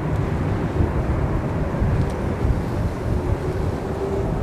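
Boeing 747-400's four General Electric CF6 turbofan engines at taxi power: a steady low rumble, with a faint steady whine coming in near the end.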